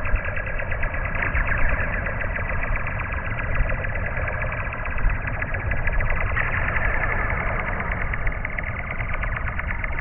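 Coiled garage door spring, hung free and set vibrating by hand, played back slowed down: a steady, dense rapid rattle with high ringing tones above a low rumble.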